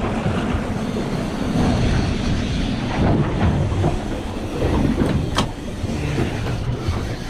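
Steady rumble of a trolling boat's outboard motor, mixed with wind and water noise, with a sharp knock about five seconds in.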